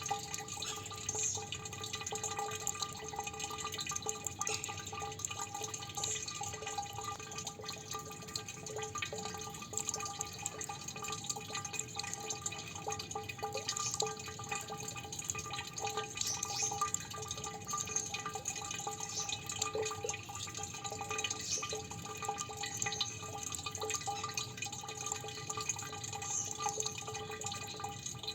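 Water dripping continuously: many drops fall in quick succession, each with a ringing plink at the same few pitches.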